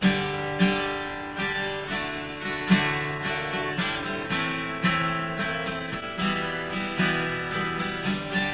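Acoustic guitar music: a run of plucked notes, each struck sharply and left to ring, about one every half second or so.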